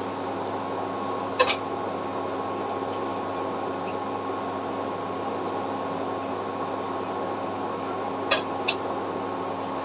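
Steady machine hum with a faint whine in it. There is a sharp click about one and a half seconds in and two quick clicks near the end.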